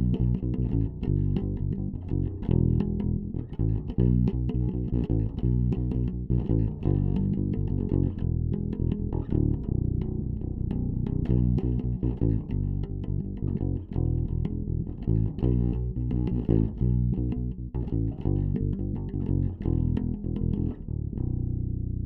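Warwick Vampyre SN-5 five-string bass played clean, direct into an audio interface: a repeated riff of plucked notes on the bridge pickup with the active EQ switched off. About a second before the end the last note is left to ring and fade.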